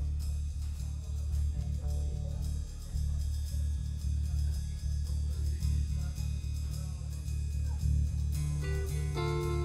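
A live rock band playing an instrumental passage: electric bass and electric guitars over a drum kit keeping a steady beat on the cymbals. Near the end a guitar comes in with held melody notes.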